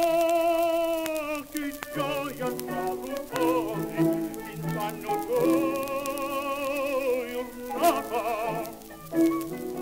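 Sicilian folk song: a long held melody note with vibrato ends about a second in, and the accompaniment carries on with short repeated notes. A second held, wavering melody note comes around the middle.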